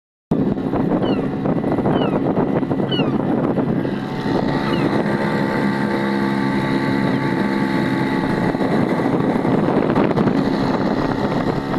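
A small Hidea outboard motor running steadily under way. Its pitch shifts slightly about four seconds in.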